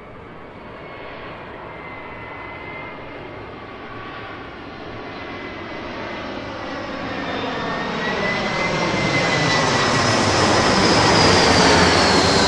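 Commercial airliner flying past: engine noise with a high whine grows steadily louder as the plane approaches and peaks near the end, where the whine starts to drop in pitch as it passes.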